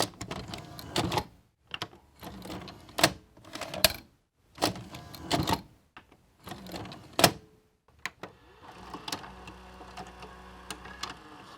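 VCR tape mechanism: a run of short mechanical clunks and motor whirs separated by brief pauses. About eight seconds in it settles into a steadier, quieter motor whir with light clicks.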